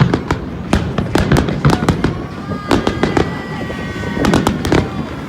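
Aerial fireworks bursting: a dense, continuous run of bangs and crackles.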